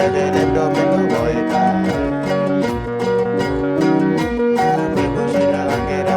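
Music played on plucked string instruments over a steady beat.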